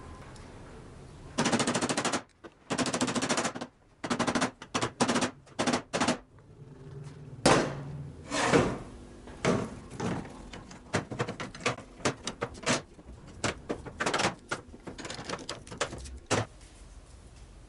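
Hand file rasping across a wooden knife handle in repeated strokes: a few long strokes starting about a second and a half in, then many shorter, quicker ones, stopping shortly before the end.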